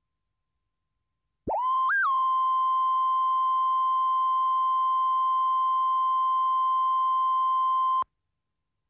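Steady line-up tone from a broadcast tape's countdown clock: a single pure beep-like tone that starts about a second and a half in, jumps briefly higher once, and then holds steady until it cuts off suddenly near the end.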